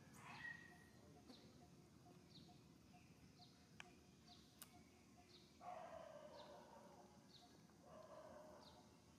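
Faint outdoor ambience with a high, short, falling chirp repeating about once a second. Two louder, brief animal calls come about six and eight seconds in.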